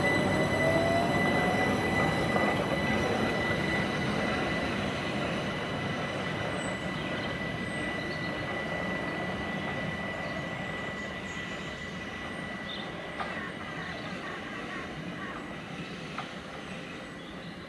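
Southern Class 377 Electrostar electric multiple unit running away along the track, its running noise fading steadily as it recedes.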